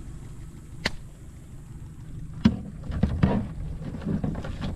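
Sharp clicks and knocks, then a cluster of knocks and rustling, as a crab is handled in the crab hatch of a small aluminium boat; wind noise on the microphone under it.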